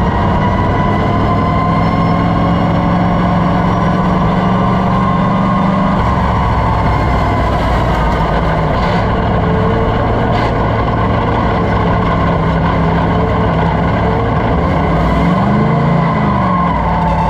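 Sportsman dirt race car's V8 engine heard from inside the cockpit, running at low speed with a steady note that drops lower about six seconds in. Near the end there is one brief rev that rises and falls.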